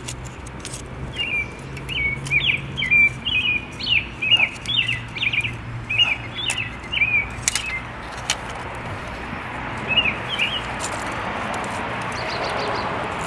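A small bird chirping in a quick series of short, high notes for several seconds, then twice more a little later, over a steady low hum. A rushing noise builds toward the end.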